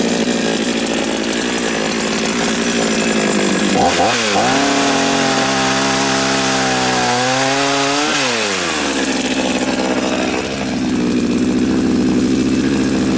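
Chinese 52cc two-stroke chainsaw with an 18-inch bar cutting through willow logs at high revs. About four seconds in the engine pitch drops and runs lower while the chain is in the cut. After about eight seconds it falls to idle, then revs back up near the end.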